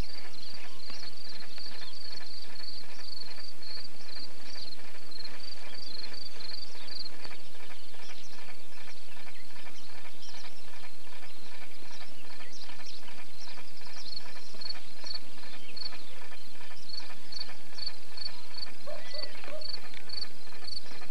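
A cricket chirps about two or three times a second, pausing briefly midway, over a dense high ticking from other insects in the grass.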